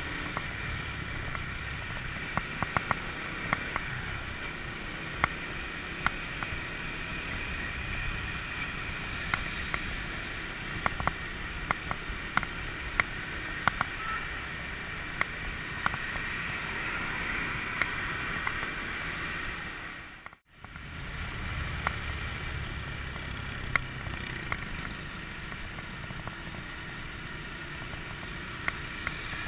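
Honda scooter in motion, heard from a handlebar-mounted camera: a steady rush of wind buffeting the microphone over the rumble of the ride, with frequent sharp ticks. The sound drops out briefly about twenty seconds in.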